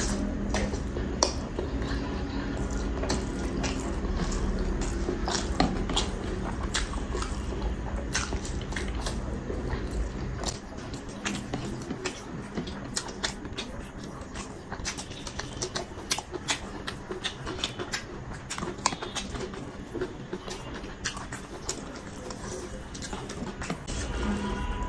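Close-miked eating sounds of chicken biryani eaten by hand: wet chewing and lip smacking with many sharp mouth clicks, and a hand squishing and scooping the rice.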